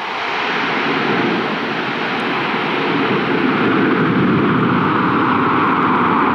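US Navy KC-130J Super Hercules's four turboprop engines running, a loud steady rush of engine noise that builds over the first second or so and then holds.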